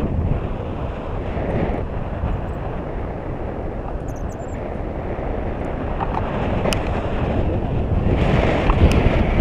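Wind buffeting the microphone of a handheld action camera during tandem paraglider flight: a steady rush of wind noise that grows louder near the end, with a couple of faint clicks.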